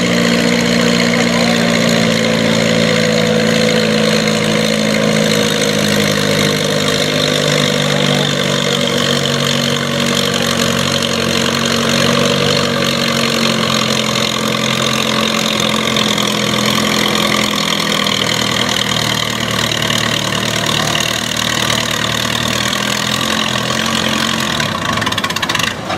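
Farm pulling tractor's engine running hard and steady, its pitch sagging slowly over the run.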